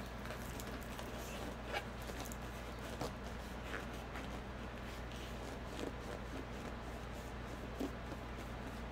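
A steady low hum with a few faint, scattered ticks and rustles of small things being handled.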